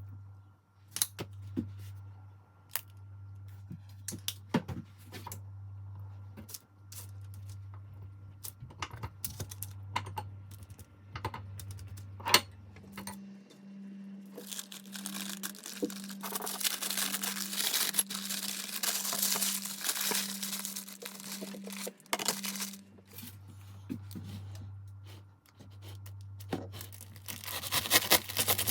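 Wrapping being crinkled and torn by hand, densest for about nine seconds in the middle and again near the end, among scattered clicks and knocks. A steady low hum runs underneath.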